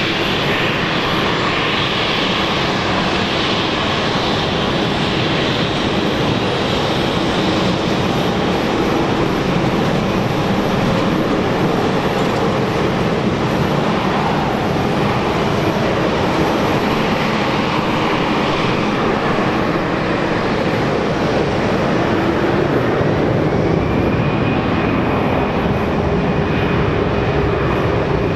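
Airbus A380-861's four Engine Alliance GP7200 turbofans running at low taxi power: a steady jet rumble and hiss. About three-quarters of the way in, a high whine rises and then holds.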